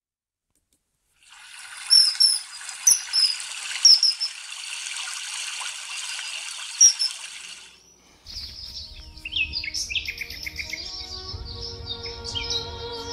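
Birds chirping over a steady high hiss, with several loud sharp calls. About eight seconds in, background music starts and birds go on chirping over it.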